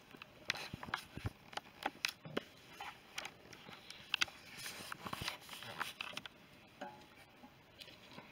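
Irregular clicks, scrapes and rustles of someone moving about in the dark and handling the camera, with no steady rhythm.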